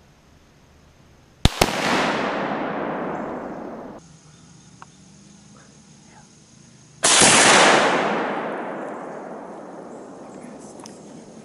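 Muzzleloader rifle firing: a sharp crack, a second crack a split second later, then a long fading boom rolling out across the woods. The shooter felt a delay between the spark and the shot, a hangfire. About 7 s in a second loud boom of the shot rings out and fades slowly.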